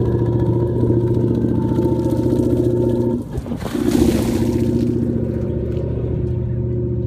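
Inboard engine of a 2013 Tige wakeboat running steadily at idle on the trailer, fed cooling water by a hose, with no change in pitch. A brief rustling dip interrupts it a little past three seconds in.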